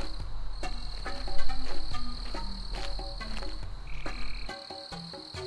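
Night jungle ambience: a steady high insect trill with frogs croaking in short calls at several pitches. A low hum underneath drops out near the end.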